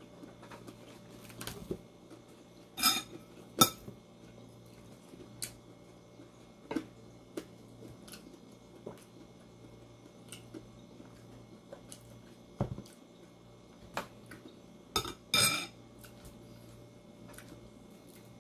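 Dishes and cutlery clinking during a meal: scattered light clicks and clatters of a spoon, plates and a glass bowl, loudest in a pair of sharp clinks about three seconds in and again around fifteen seconds in. A faint steady low hum runs underneath.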